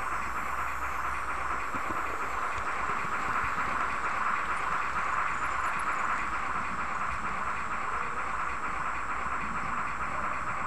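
H0-scale model of class 52 steam locomotive 52 8177-9 running along the layout, heard from a camera riding on the train: a steady hissing running noise that holds unchanged throughout.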